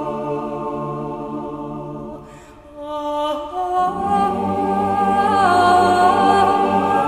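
Background music: a remix of a Serbian folk song, a woman singing long held notes over a sustained backing. The music drops away briefly between two and three seconds in, then returns with a bending, wavering vocal line.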